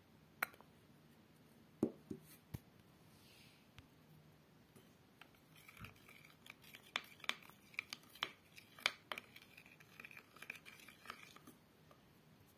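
A thin wooden stick stirring and scraping a glue-and-toothpaste paste in a clear plastic food container. A few separate taps come in the first few seconds, then a quick run of clicks and scrapes from about five to eleven seconds in.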